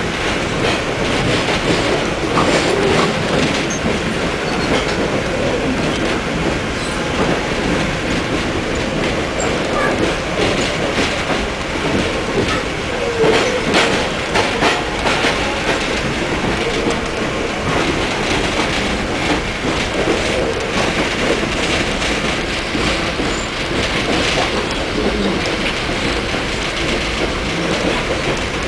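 Amtrak passenger train heard from inside the coach while running through a tunnel: a steady rumble of wheels on rail, with scattered clicks over joints and a few brief wheel squeals.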